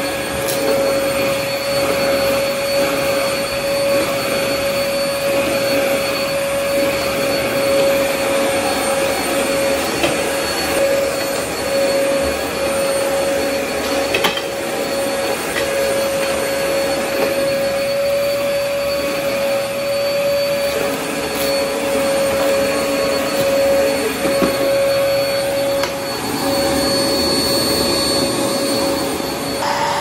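Vacmaster upright vacuum cleaner running steadily on carpet: a constant motor whine at one pitch over the rush of suction, with a few sharp clicks in the middle.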